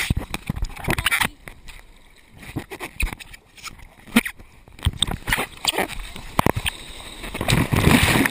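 Ocean surf sloshing and splashing against a waterproof action camera held at water level, with sharp knocks of hands on its housing. Near the end a wave washes over the camera and takes it under, the loudest part.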